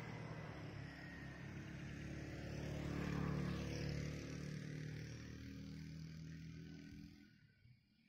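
A motor vehicle engine running, growing louder to about three seconds in and then fading away, dropping off sharply near the end.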